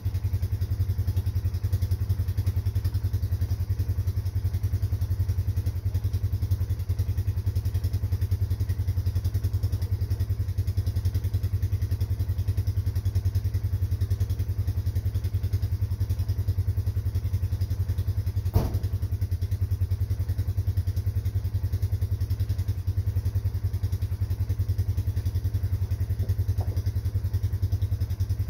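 A vehicle engine idling steadily with a low, rapid pulse, with one sharp click about two-thirds of the way through.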